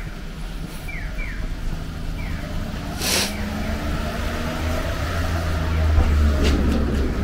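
A motor vehicle's engine running close by, a low steady drone that grows louder toward the end, with a short burst of hiss about three seconds in.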